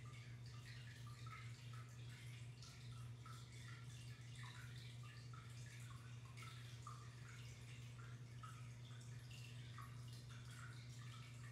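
Faint water trickling and dripping in a running home aquarium, over a steady low hum.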